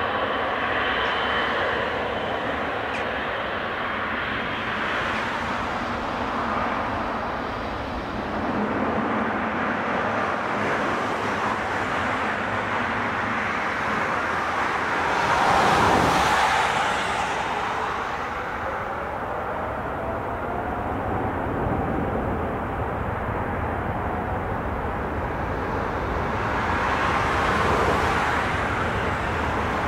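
Twin jet engines of a Boeing 777 running as the airliner moves along the runway, a steady rushing whine that grows loudest about halfway through as it passes close by, then swells again near the end.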